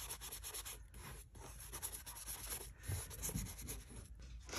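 Paintbrush scrubbing thick gouache mixed with gesso across a journal page, a soft dry rubbing in quick repeated back-and-forth strokes with a few brief pauses.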